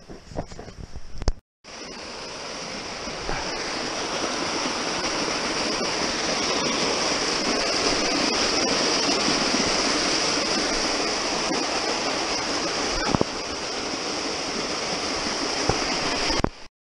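A mountain waterfall cascading down bare rock beside a snowfield: a steady, dense rushing of water that grows louder over the first few seconds and then holds. Before it starts come a couple of sharp knocks, the loudest about a second in, and a moment of silence.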